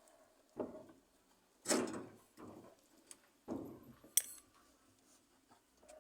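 Parts being fitted by hand into a washing machine's wash mechanism: four short scraping rubs about a second apart, then a sharp click a little after four seconds in.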